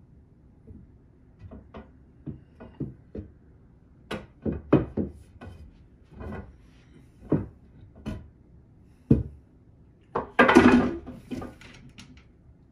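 Wooden closet rod knocking and tapping against its mounting brackets and the shelving as it is set in place, a series of separate knocks with a louder, short clatter about ten and a half seconds in.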